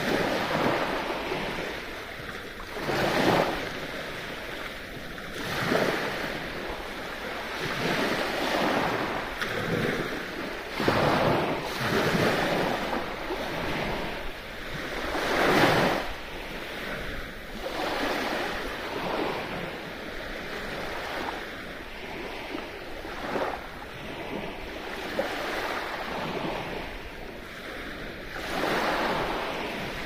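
Sea waves breaking and washing onto the shore: a steady rush of surf that swells and falls back every few seconds, loudest about halfway through.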